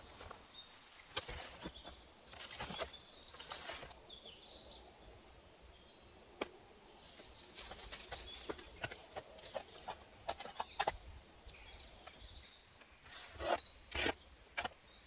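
Irregular clicks, knocks and rustles of hand work with materials, with a few short, faint bird chirps.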